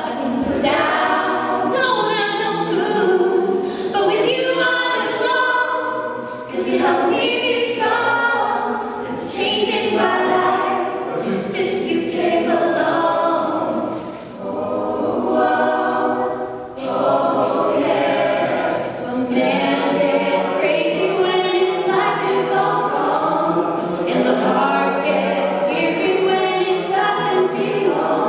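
A mixed male and female a cappella group singing a song live, several voices together in harmony with no instruments.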